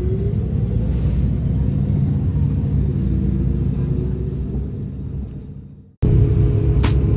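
Bus engine and road rumble heard from inside the moving bus, with a rising whine near the start as it picks up speed. The rumble fades out about six seconds in, then starts again abruptly, with a sharp click near the end.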